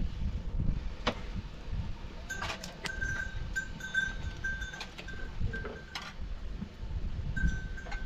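Livestock bells clinking and ringing on and off from a couple of seconds in, over a low steady rumble, with a few sharp clinks.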